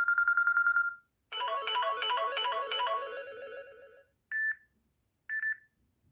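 Samsung Galaxy A3 (2015) built-in phone tones played one after another. First a quick trilled electronic beep lasting about a second, then a short repeating chime melody of about three seconds, then two brief single beeps a second apart.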